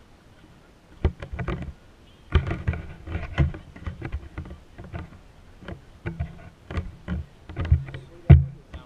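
Handling noise on a body-worn action camera: fabric rubbing and knocking against the camera as the wearer moves and walks, in irregular bumps and rustles with a low rumble.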